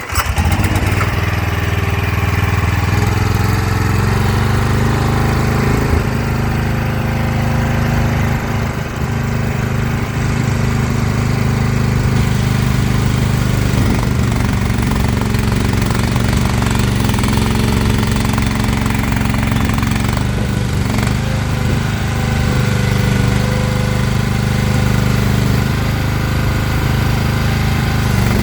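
Briggs & Stratton 13.5-horsepower engine of a mini skid steer catching and starting, then throttled up in the first few seconds and running steadily.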